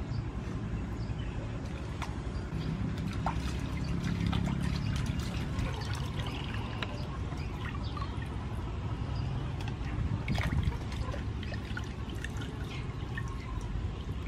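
Water splashing, trickling and dripping as pieces of raw oxtail are washed and rubbed by hand in a large aluminium basin of water, with scattered small splashes over a low steady rumble.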